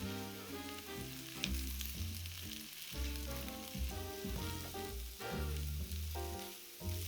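Food sizzling steadily in hot oil in a frying pan, with background music playing.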